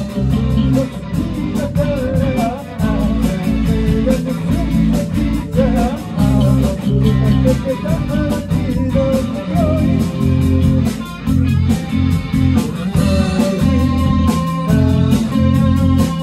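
Rock band playing live: a red solid-body electric guitar over drums keeping a steady beat, with a heavy low end.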